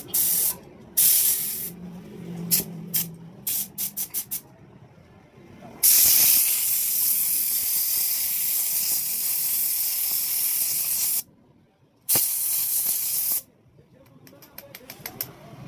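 Pressurised spray hissing in bursts: several quick short puffs, then one long spray lasting about five seconds, a shorter spray after a brief pause, and a run of quick puffs near the end.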